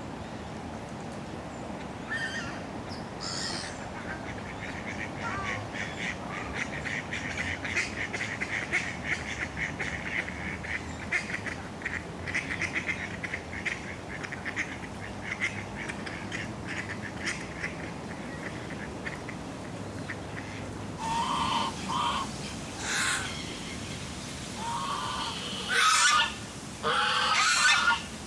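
Waterfowl at a pond: a long run of fast chattering calls, then several loud goose honks in the last third, the loudest two near the end, along with duck quacks. Steady breeze and park background underneath.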